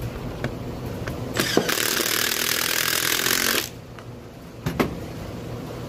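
Impact wrench running a bolt down on the halves of a wheel, one burst of about two seconds, with a few sharp clicks from handling the tool and wheel before and after it.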